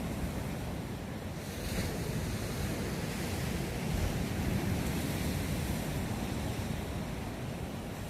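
Atlantic Ocean surf washing onto a beach as a steady rush, with a low rumble of wind on the microphone.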